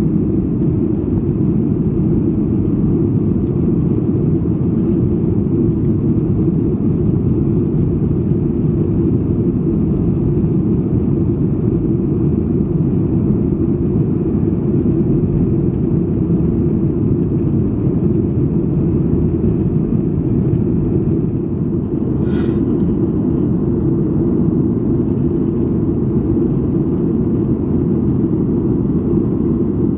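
Steady low rumble of airport apron noise: jet aircraft and ground vehicles. A short high chirp sounds about 22 seconds in.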